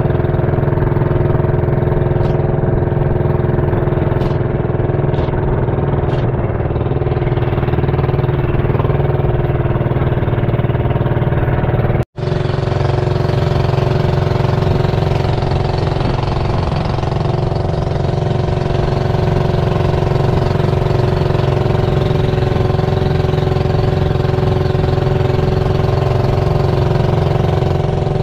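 Small boat engine running steadily at a constant speed. Its sound drops out for an instant about twelve seconds in.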